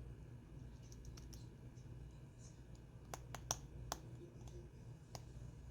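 Small, sharp clicks from a phone and tools being handled during a screen repair: four in quick succession about three seconds in, then one more near the end, over a faint low hum.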